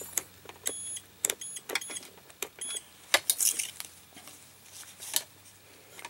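Digital clamp meter being switched on and handled: a string of short, high electronic beeps in the first three seconds, then a few sharp clicks and knocks of the meter's dial and body.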